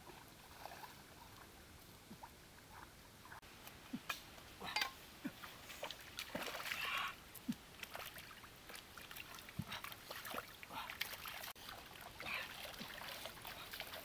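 Faint water splashing and dripping as hands wash fish in a shallow stream: scattered small plops and splashes, with a longer splash about six seconds in.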